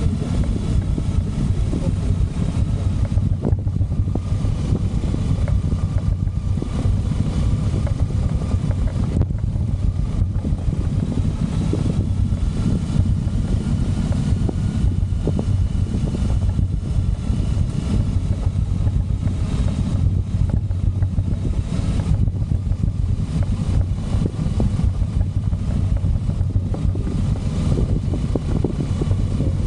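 Motorcycle engine running steadily while riding, heard as a continuous low drone with no breaks.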